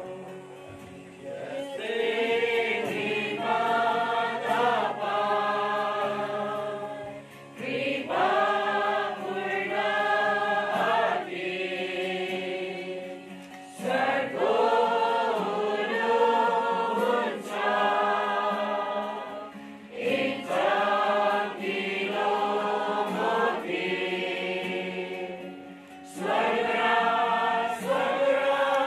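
Congregation singing a hymn together with acoustic guitar accompaniment, in phrases of several seconds with short breaks for breath between them.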